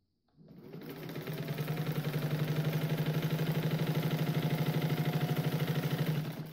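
Singer 15-91 sewing machine running and stitching through cloth. Its gear-driven potted motor whines up to speed over the first second, then the needle mechanism clatters in a fast, even rhythm over a steady motor hum until it stops near the end.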